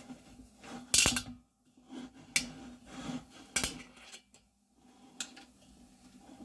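Kitchen utensils clinking and knocking against dishes, four sharp strikes a second or so apart, over a low steady hum.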